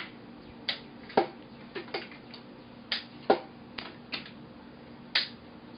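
Clamps being fitted and tightened on a freshly glued wooden box: a string of sharp, irregular clicks and knocks, about ten in all.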